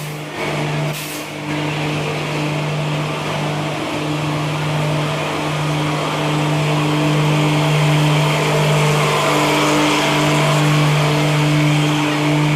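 Duranto Express train at the station: a steady low machine hum with several held tones, under a rushing rolling noise that swells in the second half.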